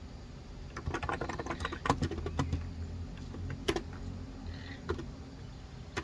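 Typing on a Cox Endeavor electro-capacitive (Topre-style) keyboard with light 35 g keys: irregular runs of soft keystrokes starting about a second in.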